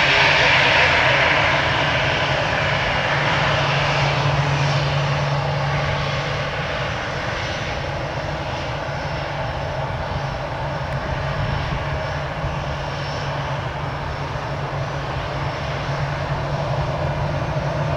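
Airbus A319 airliner's twin jet engines running, a steady rushing whine over a low hum. It eases a little over the first several seconds, then holds steady.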